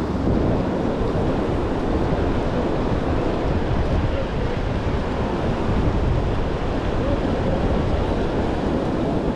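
Surf washing on a beach with wind buffeting the microphone: a steady rushing noise, heaviest in the low end.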